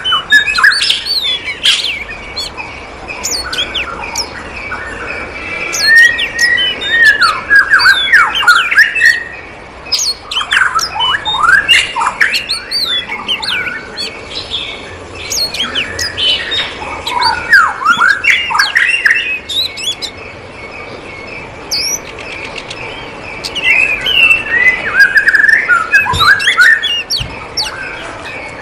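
Many small aviary birds chirping and squawking, with quick calls coming in busy spells every few seconds.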